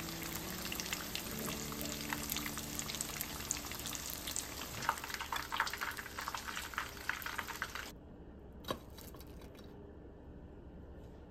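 Panko-breaded, shiso-wrapped horse mackerel fillets deep-frying in oil at 170–180 °C: a dense sizzle full of small crackles and pops of spitting oil. The sizzle cuts off sharply about eight seconds in, followed by a single light click.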